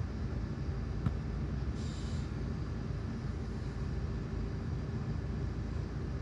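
Steady low rumble of a bus engine idling, heard from inside the standing bus, with a single click about a second in and a brief high-pitched sound about two seconds in.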